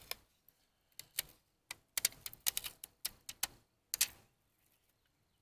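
Adhesive backing liner being peeled off a plastic emblem set: a run of irregular sharp clicks and crackles that stops about four seconds in.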